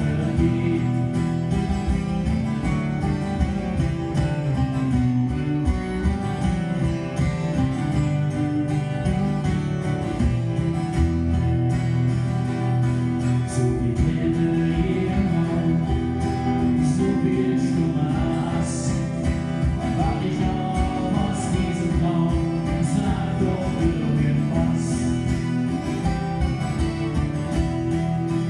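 Live acoustic performance of a ballad: two acoustic guitars played together, with a man singing.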